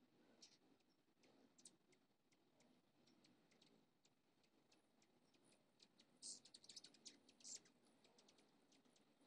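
Faint, high, dry ticks and chips over near silence, with a rapid chittering run about six to seven and a half seconds in: hummingbirds calling.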